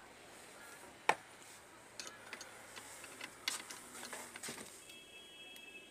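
Screwdriver and loose parts clicking and tapping against the sheet-metal chassis of an amplifier being taken apart: one sharp click about a second in, then a scatter of lighter ticks and taps. A faint steady high tone comes in near the end.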